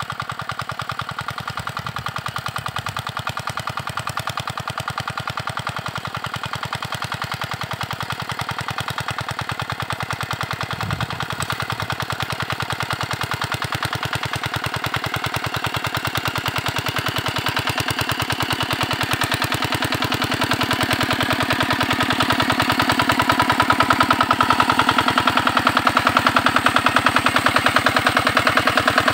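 Single-cylinder 5 hp diesel engine of a walk-behind power tiller running with a fast, even chugging while it pulls a plough through soil. It gets louder over the last ten seconds or so as the machine comes close.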